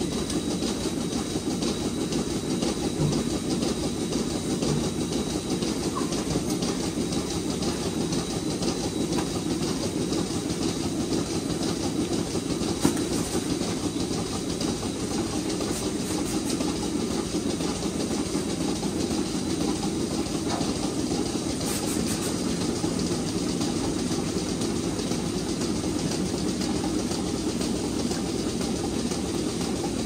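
Rotary milking parlour running: a steady mechanical rumble and clatter as the platform turns, with the milking equipment working.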